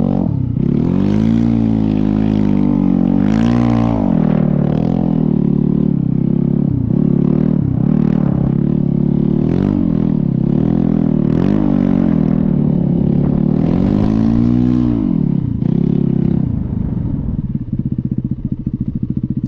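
Snow bike's dirt-bike engine revving up and down over and over as the throttle is worked, then dropping to a low, even idle near the end.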